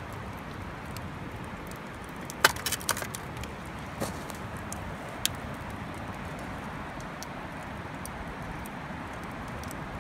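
Wood fire burning down to embers, crackling with sharp pops: a quick cluster about two and a half seconds in, then single pops near four and five seconds, over a steady hiss.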